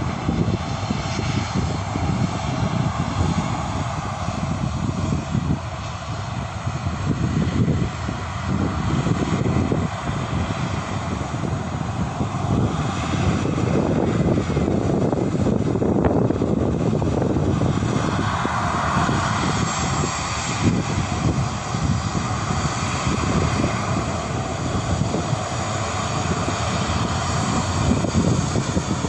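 Jet engines of a Thai Lion Air Boeing 737 running on the ground, a loud steady rumble. It swells around the middle, and a higher whine joins in from about two-thirds of the way through.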